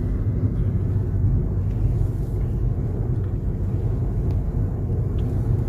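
Steady low rumble of a car driving along a road, with engine and tyre noise heard from inside the cabin.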